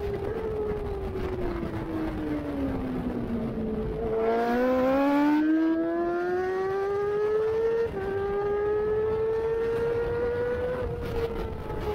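Race-prepared Honda CBR1000RR-R Fireblade's inline-four engine at high revs on track. The revs fall for about four seconds as it slows, then climb hard, with a quick upshift about eight seconds in. The revs climb again and ease off near the end.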